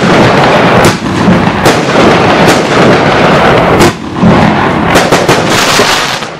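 A 156-shot, 30 mm fireworks cake (battery) firing: sharp bangs about every second over a dense, continuous crackle and hiss of bursting stars, with a quick run of shots about five seconds in.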